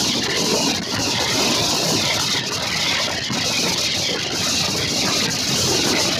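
Passenger train in motion: steady, loud running noise with a strong hiss and no distinct beats or changes.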